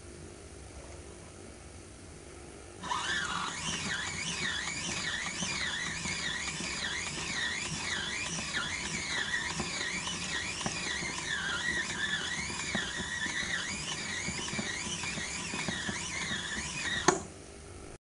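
Squeaky suspension of a Casdon Hoover Electron 1100 toy washing machine squealing as its drum is turned by hand, a high squeak rising and falling in pitch over and over. It starts about three seconds in and stops suddenly with a sharp click near the end.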